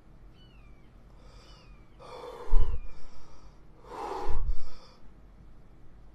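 A man's two loud, breathy gasps, about two seconds apart, each with a low thump at the start, as he strains to bring up a burp from a bloated, hard stomach.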